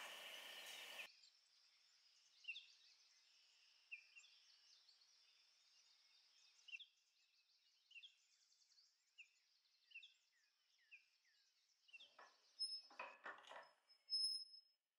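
Faint birds chirping: short, falling chirps about once a second over a quiet, steady hiss. Near the end come a few soft knocks.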